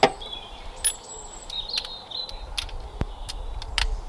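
A few sharp, irregular metal clicks and taps from hand tools working the bucket seat's rail bolts, with birds chirping faintly in the background.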